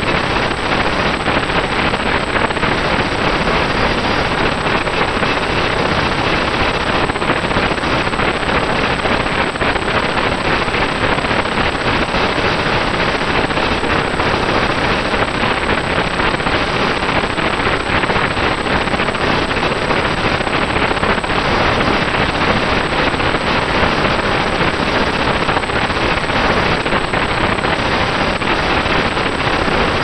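Loud, steady, harsh noise from a RunCam 2 action camera's own audio on a flying RC model, with a thin high whine on top; the motors and propellers cannot be picked out under it. The uploader calls it a horrible sound and suspects a camera hardware or firmware fault.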